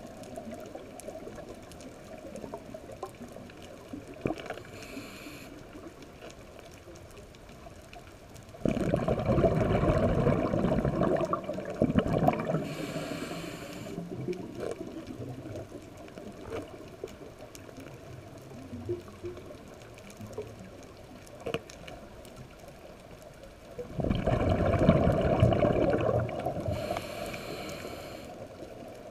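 Underwater sound of a diver's scuba regulator: twice a loud rush of exhaled bubbles lasting a few seconds, about 9 s and 24 s in, with shorter hissing breaths in between. Between the breaths, faint sharp clicks from parrotfish crunching on the coral.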